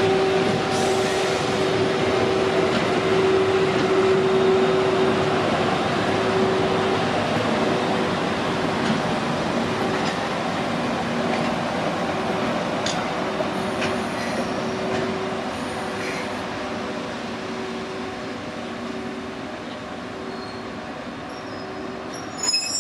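E531 series EMU cars hauled by an EF81 electric locomotive rolling past: a steady rumble of wheels on rail that slowly fades, with a low steady tone running through it.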